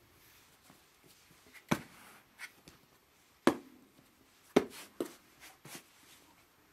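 Dough balls being set down one after another on a large metal tray, each landing as a sharp knock with a short metallic ring; about five knocks, the loudest near the start, the middle and a little past the middle.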